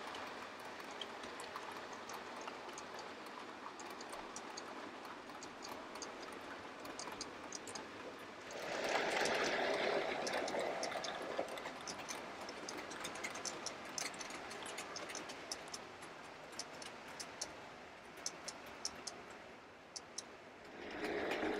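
OO gauge model trains running on the layout: a steady rolling rush of wheels and motors with many quick clicks of wheels over rail joints and pointwork. The rush grows louder about eight seconds in for a few seconds.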